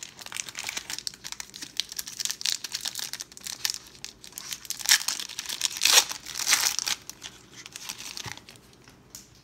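Foil wrapper of a 1992 Pro Set football card pack being torn open and crinkled by hand, loudest about five to seven seconds in.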